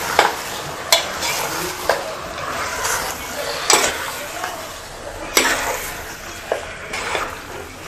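A metal spoon stirring marinated mutton and masala in an aluminium pressure cooker, scraping through the meat with several sharp knocks against the pot's sides, over a steady sizzle of the meat frying.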